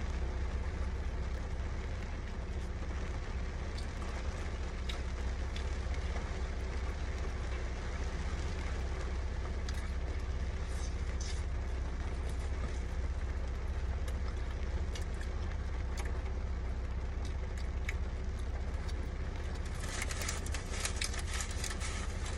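Steady low hum of a car heard from inside its cabin, with soft chewing and small clicks over it. From about 20 seconds in, a burst of crackling as the paper wrapper of the food is handled.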